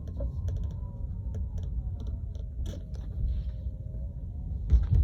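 Tesla Model 3 interior rattling while driving: small irregular clicks and ticks over a steady low road rumble, with a faint tone that drifts slowly in pitch, and one louder knock near the end.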